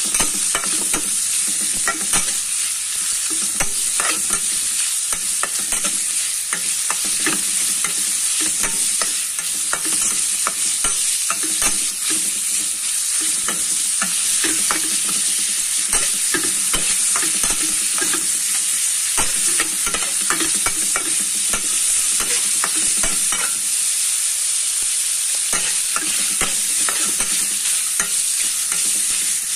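Diced bacon sizzling in oil in a frying pan, a steady hiss broken by frequent clicks and scrapes of a utensil stirring it against the pan. The bacon is being fried until crisp.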